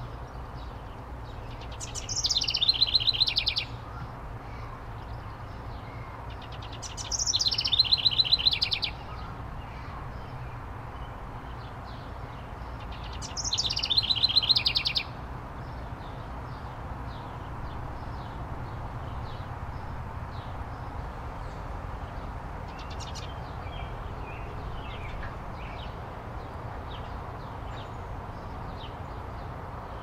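House wren singing three quick songs, each a rapid run of repeated notes lasting about a second and a half, spaced about five seconds apart. After the third song only faint scattered chips remain over a steady low background rumble.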